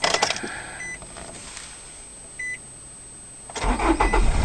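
A short electronic beep from the Nissan X-Trail, then its engine cranks and catches near the end, starting on the first try and settling into running. The start shows the replacement aftermarket crank position sensor working.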